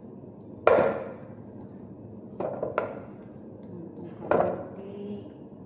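Chunks of raw sweet potato dropped by hand into a clear mixing bowl, knocking against the bowl and each other: four separate knocks, the first the loudest, then a quick pair and one more.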